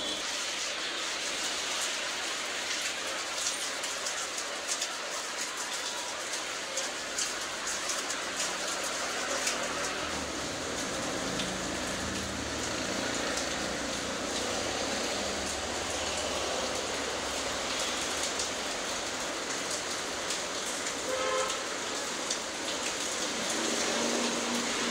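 Steady rain falling on wet stone paving and puddles, with many sharp ticks of close drops, thickest in the first ten seconds. A low rumble rises and fades in the background around the middle.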